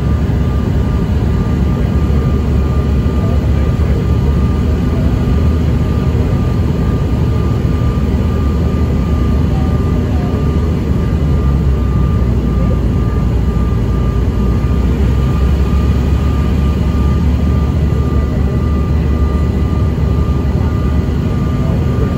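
Cabin noise inside a CRJ-900 regional jet descending to land: a steady low rumble of airflow and its rear-mounted GE CF34 turbofans, with a thin steady high whine above it.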